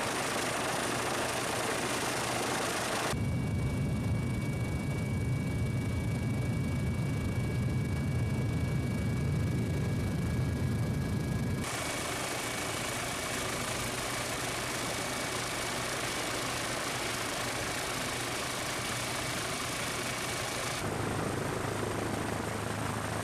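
Aircraft engine noise in several edited takes. It is steady and broad, and from about 3 s to nearly 12 s it becomes a heavy low rumble with a few steady high whining tones.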